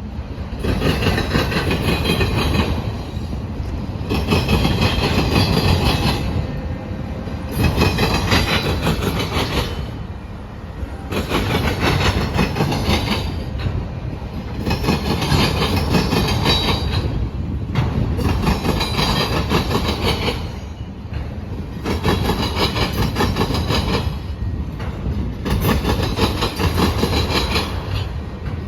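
Freight train cars rolling past at speed, their wheels clattering over the rail joints in loud surges every few seconds as each car's trucks go by, with brief lulls between.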